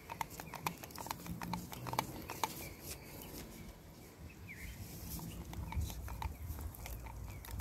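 Quiet handling sounds as a shad-belly fishing bait is bound onto its hooks with cotton thread: scattered small clicks and rustles. Faint bird chirps in the background.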